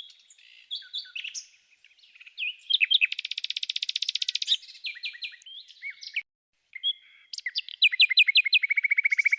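Songbirds singing: varied whistled chirps, a fast trill a few seconds in, and a run of sharp repeated chirps that leads into another fast trill near the end.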